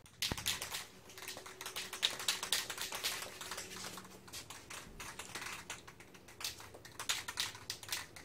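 A knock, then quick, irregular clicking and crackling as hands work a vinyl paint stencil sheet on a pinball cabinet, pressing and lifting its edge.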